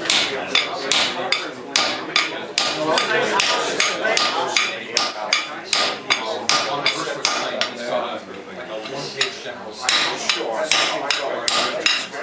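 Blacksmith's hand hammer striking metal at the anvil in a steady run of blows, about three a second, some with a high metallic ring, with a brief pause a little past halfway.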